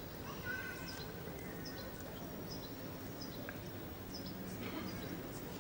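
Small birds chirping in short, high calls, repeated every second or so, over a steady background hiss.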